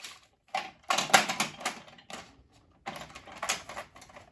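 Small diamond-painting tools such as tweezers being sorted, clattering and clicking against each other and the toolbox in two quick bursts, one about a second in and another near three seconds in.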